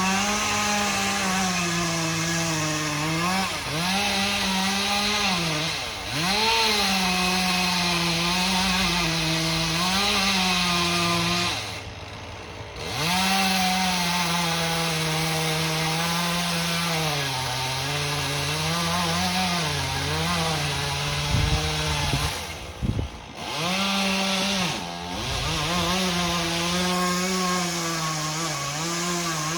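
Chainsaw running at high revs through a cut in ash wood, its pitch dipping and rising again and again as the chain bites under load. It eases off twice, briefly, partway through.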